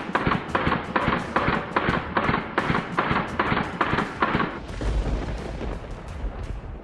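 A rapid string of about a dozen sharp gunshot bangs, roughly three a second, that stops a little over halfway through and gives way to a deep low rumble.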